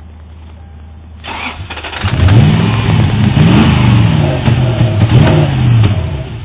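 2003 Toyota 4Runner's 4.7 V8 being cranked over by the starter for about five seconds without catching, then stopping; the no-start came from a crankshaft position sensor wire rubbed through on the crank pulley. Heard through a doorbell camera's microphone.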